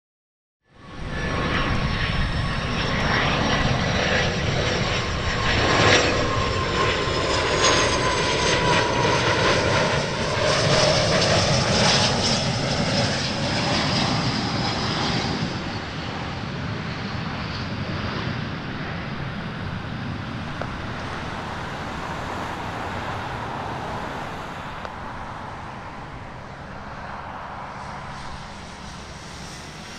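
Gulfstream IV business jet's twin Rolls-Royce Tay turbofans on landing approach: a loud jet whine with high tones that slide slightly down in pitch as the aircraft passes, cutting in suddenly under a second in. Over the second half it fades to a duller, steadier rumble as the jet moves away toward touchdown.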